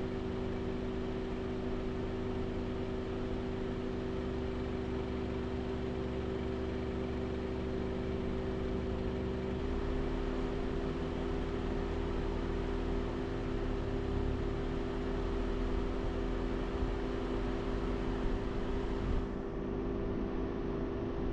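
Steady car running noise with a constant low hum. The hum shifts slightly about ten seconds in.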